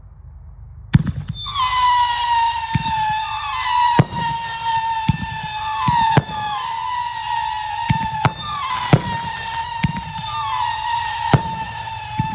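A 500-gram fireworks cake firing its shots one after another, about one a second. The first crack comes about a second in. Each shot goes up with a high whistle that sags slightly in pitch, and the whistles overlap into continuous whistling, broken by sharp cracks as the shots fire and burst.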